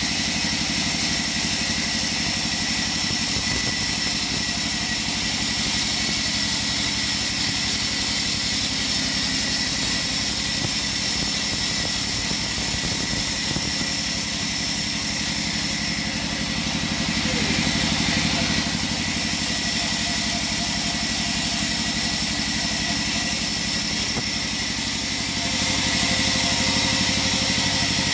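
Sawmill machinery running steadily with a constant hum and high whine. It dips briefly in loudness twice, about two-thirds of the way through and again near the end.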